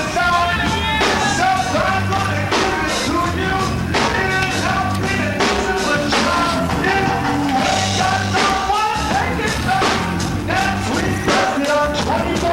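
Rock song with singing over a bass line and a steady drum beat.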